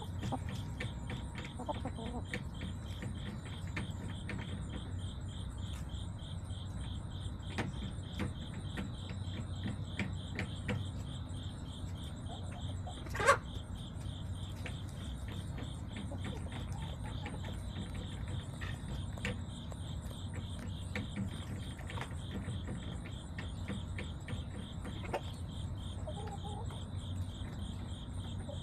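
Crickets chirping steadily in a fast, even pulse over a low background rumble. One brief, sharp sound stands out about halfway through.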